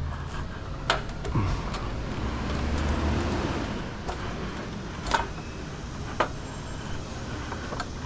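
A motor vehicle's engine rumbling nearby, with a few sharp knocks or clanks and a short falling whine about a second and a half in.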